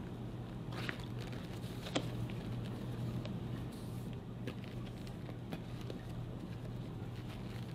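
Faint rustling and scattered light clicks of hands tying the cloth straps of a metal-plated suneate shin guard, with one sharper click about two seconds in, over a steady low hum.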